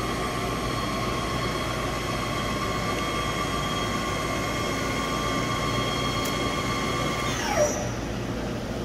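You-Ji YV-1200 CNC vertical turning/milling center running with a steady high whine from its drive over a mechanical hum. About seven seconds in the whine falls quickly in pitch and dies away as the drive spins down, leaving a steady fan-like hum.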